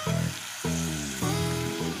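Papaya slices and sardines sizzling in a stainless steel pot as a metal ladle stirs them, under background music with a melody.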